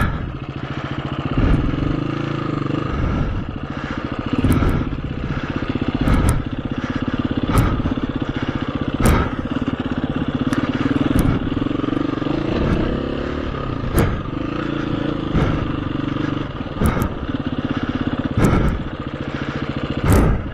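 KTM 350 EXC-F single-cylinder four-stroke dirt bike engine running at low, varying revs on a rough trail. About a dozen sharp knocks and clatters from the bike come at irregular intervals.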